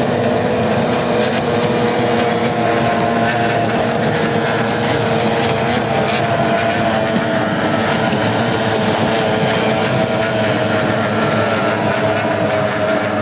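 Several racing outboard engines on small race boats running flat out together, a steady, high, overlapping engine whine that holds its pitch with only slight drifts.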